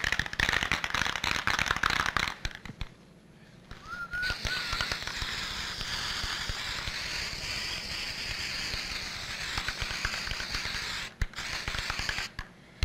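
Aerosol spray-paint can spraying red paint onto a stencil. First a crackly, spitting burst of about two seconds, then after a short pause a long steady hiss of about seven seconds that opens with a brief whistle.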